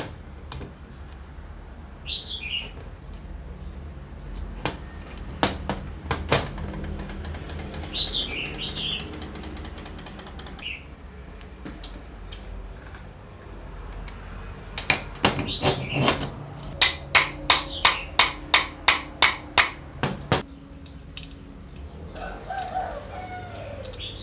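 Parts of a disassembled rotary hammer drill being handled and fitted into its aluminium housing: scattered clicks and knocks, then in the second half a fast, even run of about sixteen sharp taps over five seconds, the loudest sound. Small birds chirp a few times in the background.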